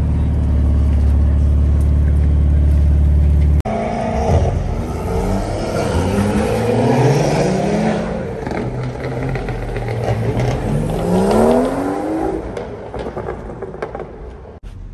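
A steady car engine drone cuts off abruptly about three and a half seconds in. After that, car engines are heard revving and accelerating, rising in pitch several times, loudest near the middle. The sound dies away near the end.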